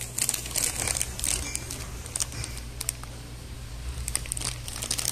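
Plastic packets of powdered chocolate drink crinkling as a hand handles them, in bursts during the first second and a half and again near the end, over a steady low hum.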